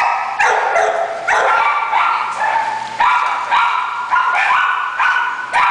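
A dog barking over and over in a steady string, about two barks a second.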